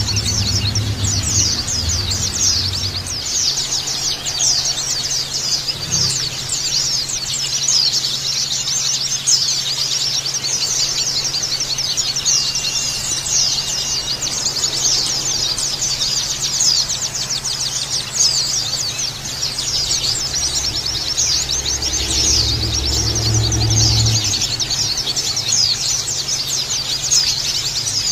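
A group of white-eyes (pleci) chirping and twittering continuously in rapid, overlapping high calls. A low rumble sits under it at the start and again about 21 seconds in.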